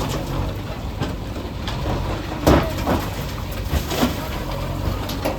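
Diesel engine of heavy construction machinery running steadily, with a few short clanks or knocks, the loudest about two and a half seconds in.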